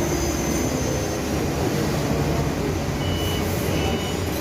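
Heavy forklift engine running steadily, with its reversing alarm starting to beep near the end, twice.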